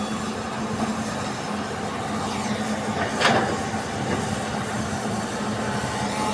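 Heavy diesel engines of an excavator and dump truck running steadily while soil is loaded, with one sharp clank about three seconds in.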